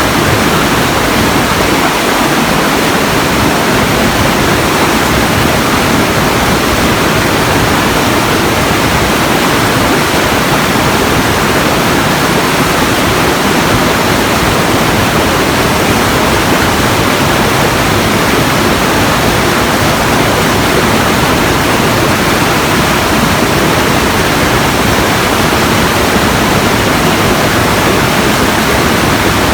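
Steady, loud, even rushing noise that does not change, with no separate events.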